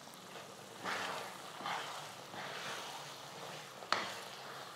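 Steel spoon stirring thick rice kesari cooking in ghee in a nonstick pan: a few scraping, sizzling strokes, with a sharp click near the end.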